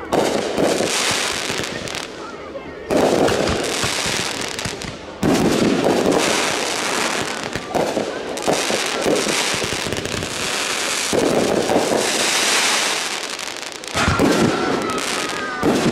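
Consumer aerial fireworks bursting overhead: about five sharp bangs a few seconds apart, each followed by a long crackling hiss as the shell's stars burn out.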